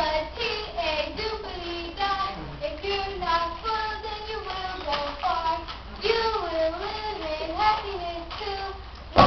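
A child singing a solo melody into a handheld microphone, with a wavering held note about six to eight seconds in.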